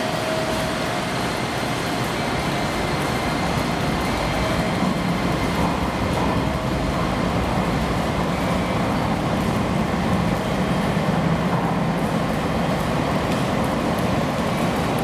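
JR Kyushu YC1 series hybrid railcar running at the platform: a steady low drone from its diesel generator engine and drive, which swells around the middle.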